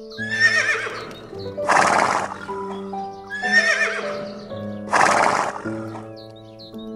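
A horse whinnying twice, each wavering whinny followed by a short harsh blast of breath, the two calls identical as if the same call were repeated, over background music with steady sustained notes.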